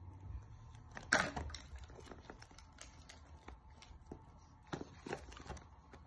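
Faint clicks and rustles of a plastic 5 Surprise toy capsule and its clear plastic wrapper being handled, with a sharper click about a second in.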